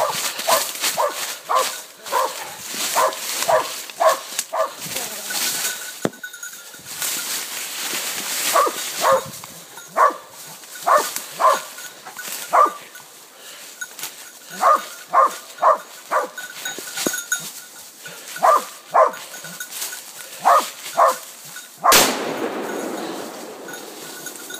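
Hunting dog barking in runs of short, quick barks, about two a second, with pauses between the runs, over the rustle of footsteps in dry leaves. Near the end there is a single sharp crack followed by a couple of seconds of rushing noise.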